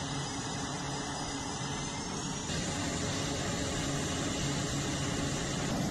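F/A-18 Super Hornet jet engines running on a carrier flight deck: a steady dense noise with a faint high whine that rises slightly in pitch, stepping up louder about halfway through.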